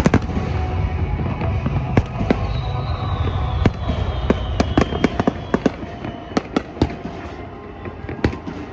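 Fireworks going off: rapid, irregular pops and cracks over a continuous low rumble, with a falling whistle a few seconds in.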